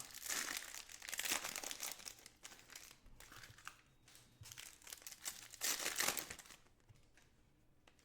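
Foil trading-card pack wrappers being torn open and crinkled by hand: a run of crackling over the first few seconds, then another short burst about six seconds in.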